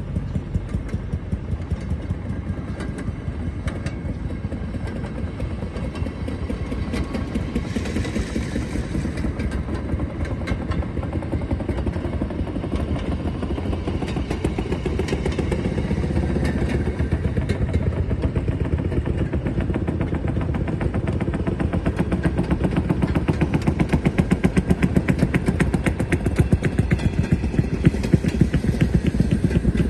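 Rail speeder (track motorcar) running along the rails, heard from aboard: its small engine beats at a rapid, steady pace over low rumbling track noise. The sound grows somewhat louder in the second half.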